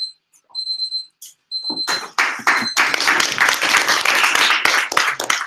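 An electronic timer beeps in short, high pulses about half a second apart, signalling that speaking time is up. About two seconds in, applause starts and fills the rest.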